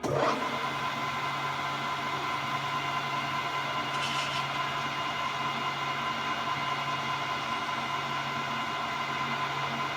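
Okuma & Howa STM 2V vertical milling machine running, a steady mechanical hum with a constant whine that starts abruptly. A brief higher-pitched sound comes about four seconds in.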